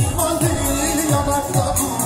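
Music with singing over a steady, fast drum beat.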